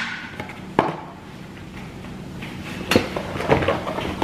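A few sharp knocks and clinks of dishes and utensils being handled as food is served, with quiet between them.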